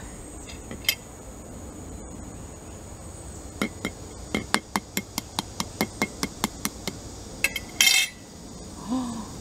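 A spoon tapping a hard-boiled duck egg to crack its thick shell: a run of about four light taps a second for several seconds, then one louder clink near the end.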